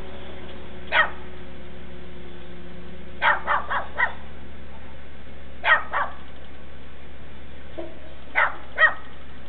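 A dog barking in short, separate barks: one, then a quick run of four, then two pairs, over a steady low hum.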